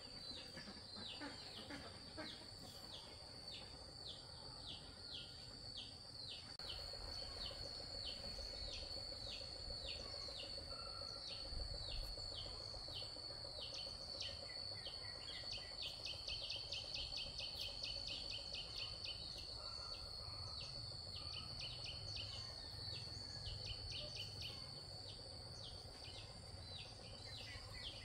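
Insects and birds: a steady high-pitched insect drone, with short falling chirps repeating about twice a second and a spell of rapid high trilling midway. A low rumble sits underneath from about six seconds in.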